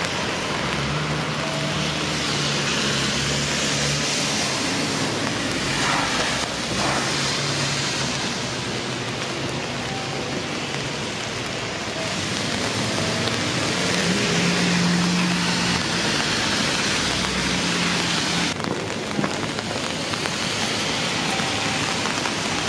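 Steady rain falling on wet pavement, with a low engine hum from vehicles that comes and goes underneath.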